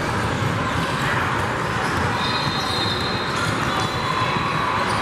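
Basketball game noise in a large gym: a ball bouncing on the hardwood court amid a steady wash of crowd voices and shouts.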